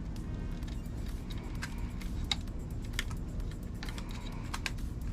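Light, irregular clicks and taps of small parts being handled and fitted on an RC car chassis while a cable is secured with a small hook, over a low steady hum.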